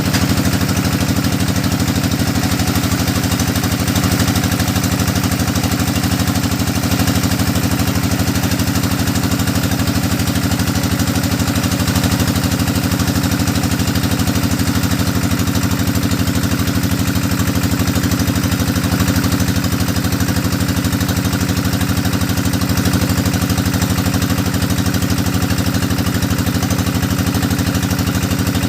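Engine of a hydraulic deep-well drilling rig running steadily at an even speed, with a fast, regular firing pulse.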